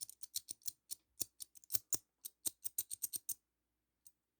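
Rapid, irregular metallic clicks and ticks of a cast metal padlock puzzle's pieces knocking and sliding against each other as they are turned in the hand, dense for about three and a half seconds, then thinning to a single click near the end.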